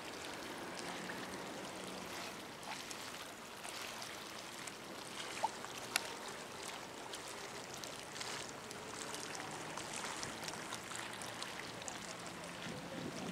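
Harbour ambience: water lapping against the concrete quay and the moored ship's hull under a steady outdoor hiss, with two brief sharp clicks about halfway through.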